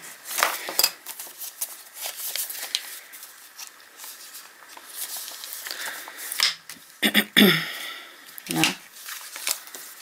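Paper and card rustling and scraping as they are handled, with short clicks of metal binder clips being opened and clipped onto the card. The handling is loudest about seven seconds in.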